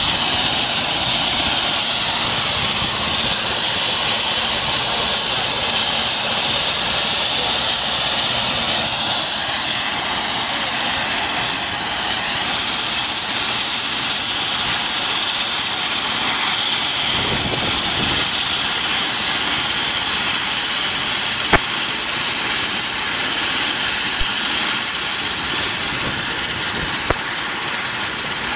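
Helicopter running on the ground with its rotor turning: a loud, steady turbine whine mixed with rotor and engine noise. A higher whine rises briefly about ten seconds in.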